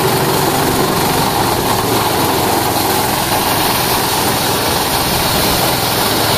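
Engine-driven double-blower mini rice thresher running steadily at working speed while rice stalks are fed into its threshing drum: an even, loud machine noise of engine, drum and blowers.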